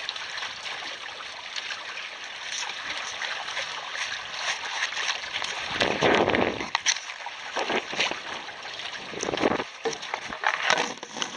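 Sea water rushing and splashing against the hulls of a double canoe sailing under way, with louder surges of splashing about six seconds in and again near the end.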